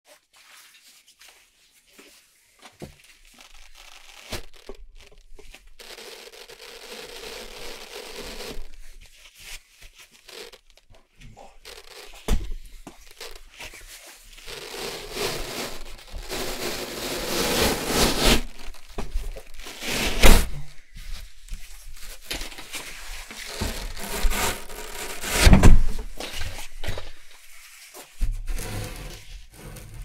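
Velcro (hook-and-loop) being pulled apart: a large black fabric sheet is peeled off its base in long ripping stretches of a few seconds each. A few dull thumps fall between the rips.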